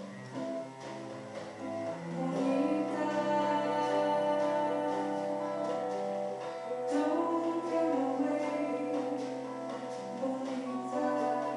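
Live Brazilian bossa nova: a woman sings a slow melody over cello, acoustic guitar and light percussion.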